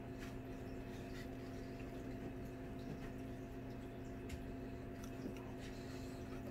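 Quiet room tone with a steady low hum. Over it come a few faint ticks and scratches from a pen being drawn along a clear plastic ruler on a wooden board.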